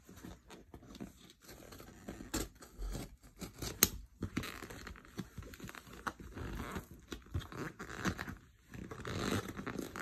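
Courier mailer envelope being handled and worked open by hand: irregular rustling and crinkling with scattered clicks, one sharp click about four seconds in.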